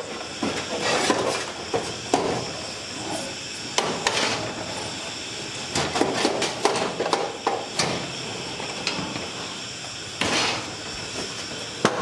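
Screwdriver work on a metal desktop computer case: irregular clicks, scrapes and knocks as case screws are undone and the metal panel is handled.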